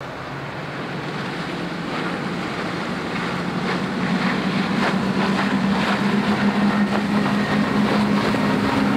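Supercharged Mercury outboard motors on a catamaran running at high speed, a steady engine hum over the hiss of the hull and spray, growing louder as the boat approaches.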